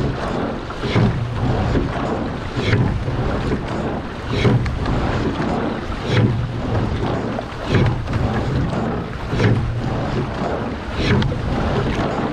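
Water rushing along the hull of a coxless pair rowing shell under way, with wind on the microphone. Each rowing stroke brings a swell and a sharp splash, about every 1.7 seconds, a racing rate of about 35 strokes a minute.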